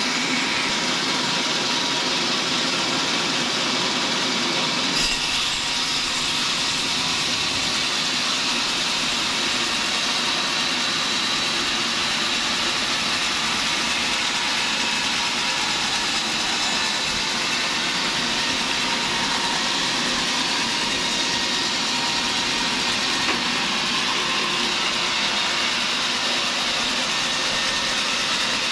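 Band sawmill ripping lengthwise through a large mahogany log: the blade cutting with a steady, even hiss over the running machine.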